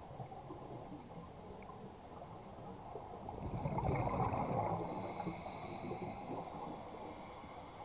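Scuba diver's exhaled bubbles gurgling and rushing past the underwater camera, swelling to a louder burst about three and a half seconds in and easing off over the next couple of seconds.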